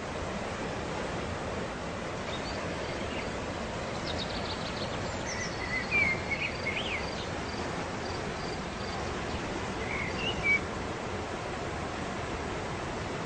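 Steady rushing of a waterfall, with a few birds chirping over it: a short trill about four seconds in, then sharper chirps around six seconds and once more near ten seconds.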